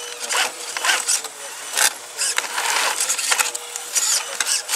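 Radio-controlled scale crawler truck's electric motor and gearbox whining in repeated short bursts of throttle as it climbs over a log.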